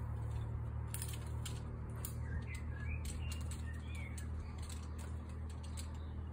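Outdoor ambience: a few short bird chirps in the middle, over a steady low rumble, with scattered faint clicks.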